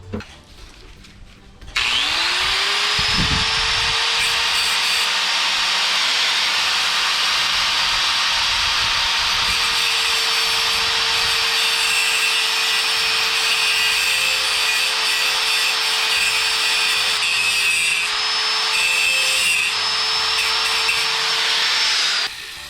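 Electric angle grinder spinning up about two seconds in and running steadily on sheet steel, with a loud steady grinding noise and motor whine, then cutting off near the end.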